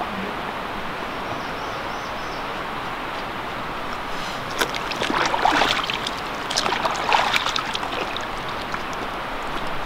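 Steady rush of flowing stream water, with splashing and gurgling in the middle stretch as a water bottle is dipped into the water and filled.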